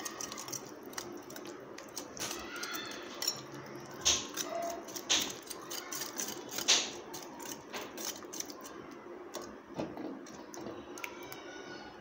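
Wire whisk beating a thick yogurt marinade in a ceramic dish: quick wet squelching and repeated clicks of the metal wires against the dish, with a few louder clinks near the middle.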